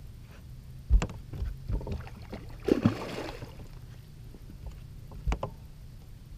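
Water splashing as a musky swirls at the surface beside the boat, a brief wash of noise near the middle. There are a few sharp knocks before and after it.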